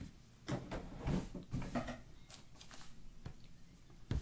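A person eating raw cornstarch powder close to the microphone: irregular rustling and crunching bursts through the first three seconds, then a sharp knock near the end.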